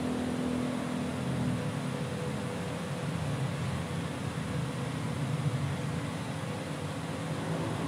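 A steady low mechanical hum, like an engine or machine running, with a few faint steady tones in it.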